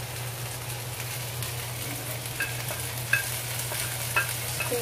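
Shrimp sizzling in hot oil in a nonstick wok as it is stirred, a steady frying hiss with a few light clicks against the pan from about halfway through.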